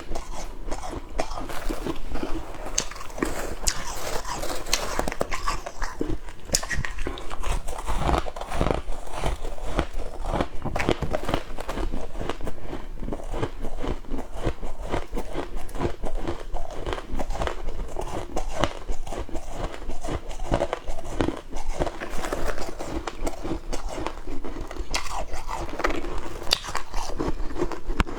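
Close-up crunching of flaky freezer frost being bitten and chewed: a dense, continuous run of crisp, irregular crackles.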